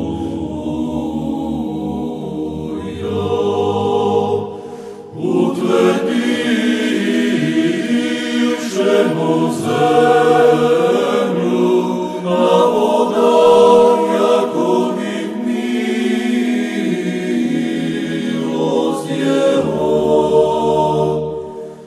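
Unaccompanied choir singing slow church chant in long held chords, with a short break between phrases about five seconds in.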